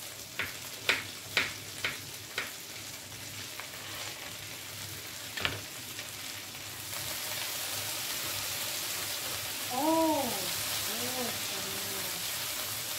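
Chicken and potato pieces sizzling as they fry in a pan. In the first couple of seconds come five sharp clicks, about two a second, as a knife cuts raw potato; one more comes a few seconds later. The sizzle grows louder about seven seconds in, and a wooden spatula stirs the food near the end.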